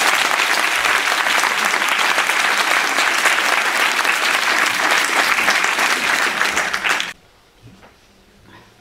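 Audience applauding in dense, steady clapping that stops suddenly about seven seconds in.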